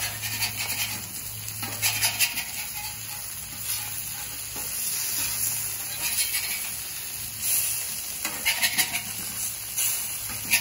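Eggs frying on a Camp Chef flat top griddle, sizzling steadily, while a metal spatula scrapes across the griddle several times as the eggs are flipped.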